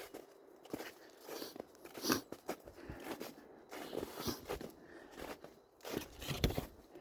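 Footsteps crunching in fresh snow, a step every second or so at a walking pace.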